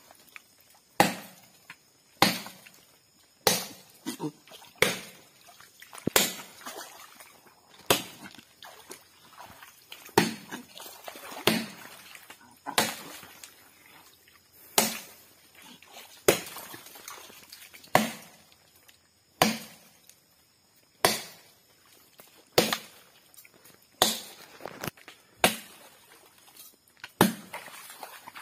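Steady chopping into the trunk of a sago palm, with a hard blow about every one and a half seconds, roughly twenty in all.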